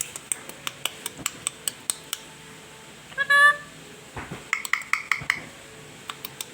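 A run of sharp clicking, clinking taps, about five a second for two seconds. About three seconds in comes one short, loud, pitched squawk from a black-capped lory, then another cluster of clicks and knocks.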